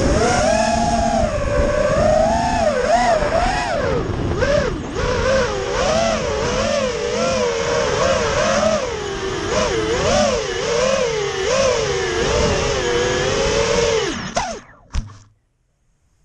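FPV racing quadcopter's brushless motors whining, the pitch constantly rising and falling with the throttle, over a steady rushing hiss. The sound cuts off sharply near the end.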